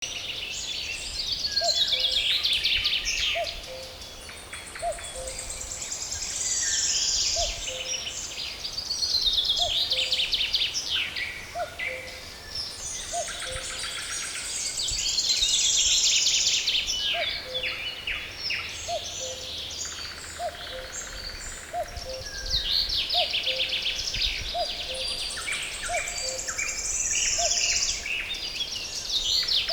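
A chorus of forest songbirds: overlapping high chirps and songs, with a falling song phrase repeated every several seconds. Under them, a lower two-note call, high note then lower note, repeats about once a second.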